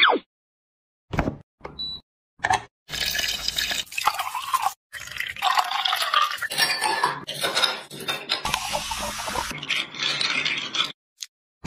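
Liquid pouring into a tall glass, then ice clinking as a spoon stirs the drink, in short cut-together clips. A short falling tone sounds at the very start.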